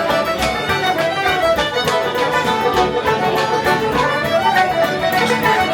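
Fiddle playing a lively melody over strummed guitar with a steady beat: traditional Irish-style music played live.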